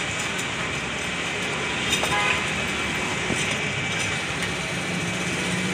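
Steady traffic noise from a nearby road, with one short click about two seconds in.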